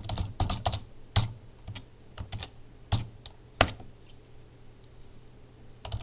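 Typing on a computer keyboard: a quick run of keystroke clicks, then a few scattered taps, a pause of about two seconds, and typing again just at the end.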